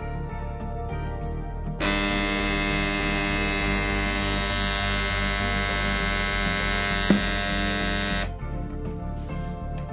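Homemade inverter's microwave-oven transformer buzzing loudly and steadily once switched on, starting about two seconds in and cutting off about six seconds later, with a brief click near the end of the buzz. Background music plays underneath.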